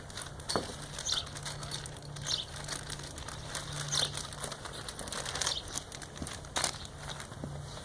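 Scattered light clicks, taps and rustling from lift parts and packaging being handled.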